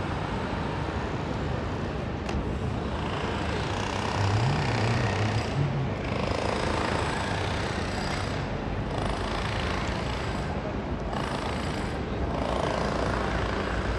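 Outdoor city-square ambience: a steady rumble of distant traffic and general noise, with a brief low hum a few seconds in.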